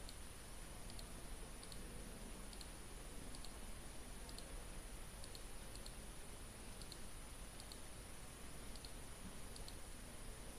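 Faint computer mouse clicks, each a quick double tick, coming irregularly about once or twice a second, over a steady hiss with a thin high whine.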